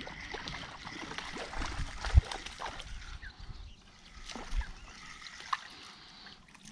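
A small crucian carp splashing at the surface as it is reeled in through the water towards an inflatable boat, with clicks of handling and a low knock about two seconds in, another a little after four seconds.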